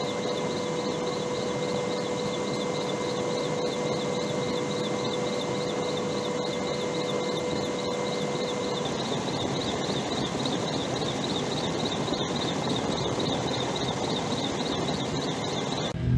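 Steady helicopter cabin noise: a constant rushing drone with a steady hum and a faint warble repeating about three times a second. The lowest hum tone drops out about halfway through, and guitar music cuts in at the very end.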